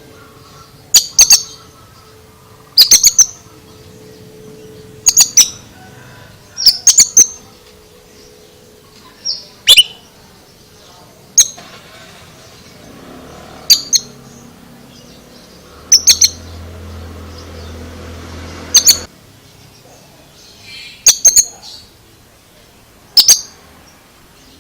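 Oriental magpie-robin (kacer) giving short, loud, high-pitched chirping calls about every two seconds, often doubled or tripled.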